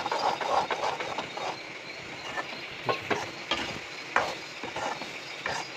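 Metal spoon stirring and scraping a thick chicken curry in a metal kadhai, with irregular scrapes and clinks against the pan.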